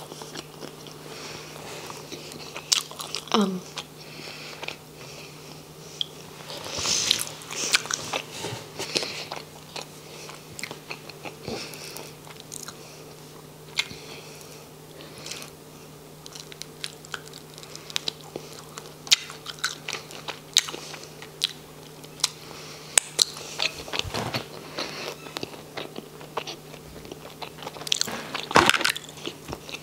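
Close-miked biting and chewing of a Beyond BBQ cheeseburger with onion rings inside: irregular crunches, mouth clicks and smacks, louder bites around a third of the way in and again near the end.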